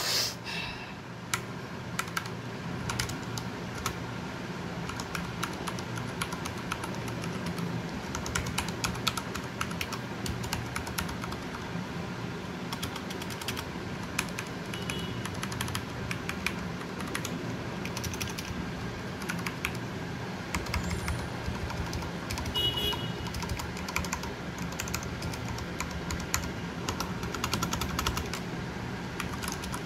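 Typing on a Dareu A87 Swallow mechanical keyboard with Cherry MX Brown switches and PBT keycaps: a steady stream of key clacks with a few quick flurries. The Brown switches are tactile but not clicky, so there is no sharp switch click, only the keycaps bottoming out.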